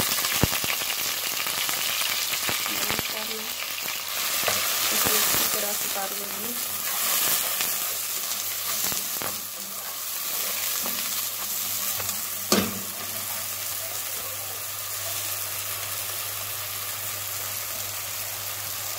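Chopped onions sizzling in hot oil in a non-stick pan, louder in the first few seconds and then a little softer, with a spoon stirring and scraping now and then and one sharp knock about twelve seconds in.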